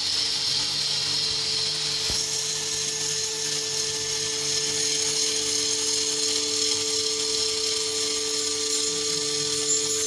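Sustained drone from the performance's sound projection: two steady held tones under a high, hissing whine, unchanging throughout, with one faint click about two seconds in.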